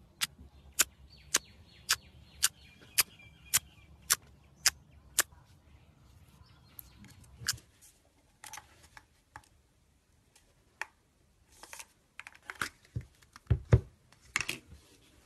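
Fingers poking clear slime in a plastic tub, a sharp click or pop about twice a second for the first five seconds. Then scattered clicks, pops and a few dull thumps as a plastic cup of clear slime is handled and tapped, loudest near the end.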